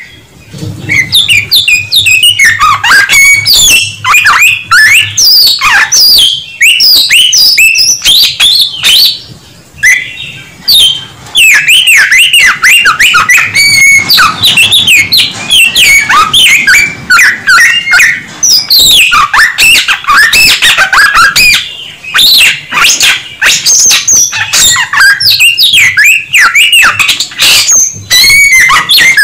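A Samyong songbird in full song, pouring out loud, fast, ever-changing phrases of whistles, slurs and trills, with short pauses near the start and about a third of the way in.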